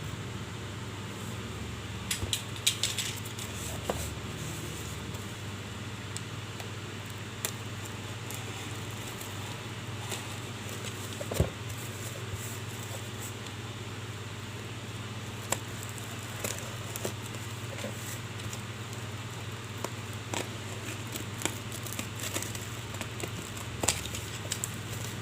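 Hot Wheels blister-card packaging being handled and opened: scattered plastic and cardboard clicks and crackles over a steady low hum.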